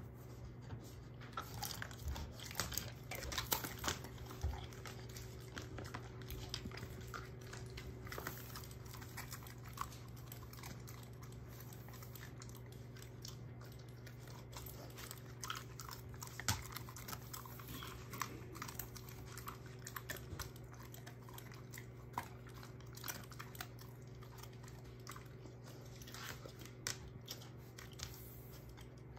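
A German shorthaired pointer chewing and crunching dried dog treats: irregular crisp crunches and clicks, busiest in the first few seconds and again around the middle.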